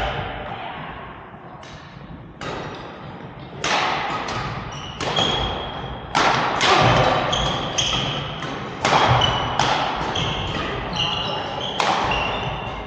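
A badminton rally: rackets striking the shuttlecock about a dozen times at an uneven pace, each hit sharp and echoing in a large hall, with short high squeaks in between.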